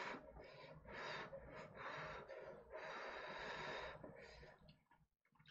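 Cup ramen noodles slurped into the mouth in several faint drawn-in sucks, the longest lasting about a second.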